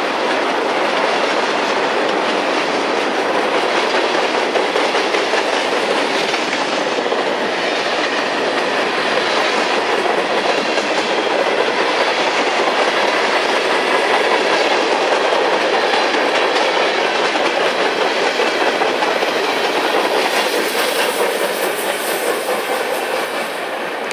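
Freight train tank cars rolling past close by: a steady rumble and rattle of steel wheels and trucks on the rails, fading slightly near the end.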